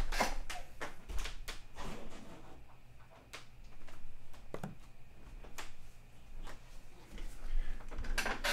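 Scattered small clicks, knocks and rustles of objects being handled, as a small metal pendant is fetched and set down on an open magazine.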